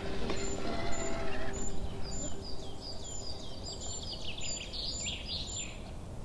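Woodland birds chirping, a short high call repeating about twice a second among lower falling calls, over low outdoor noise. A faint steady hum dies away within the first two seconds.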